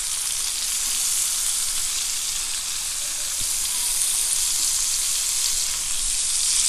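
Fish and chopped tomato pieces frying in oil on a flat tawa griddle: a steady sizzle.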